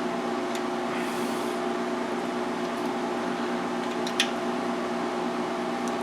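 Steady machine hum with several fixed tones, unchanged throughout, with a single sharp click about four seconds in.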